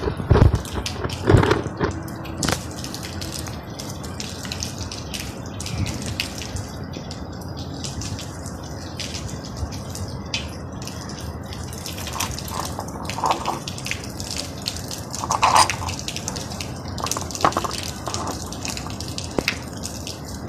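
Steady rain falling, with many small drips and splashes and a few louder splashes spread through.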